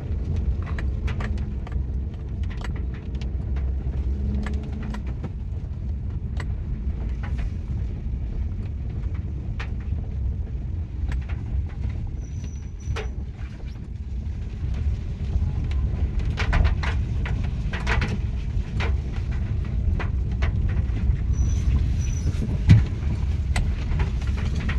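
A car heard from inside its cabin, rolling slowly with a steady low engine and road rumble, and scattered sharp ticks of raindrops striking the windshield and roof. One louder knock comes near the end.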